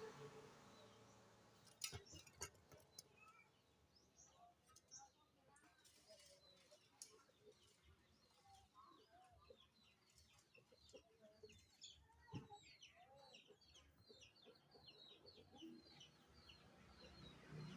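Faint, busy chirping of birds, many short high calls in quick succession, with a few sharp knocks about two seconds in and again past the middle.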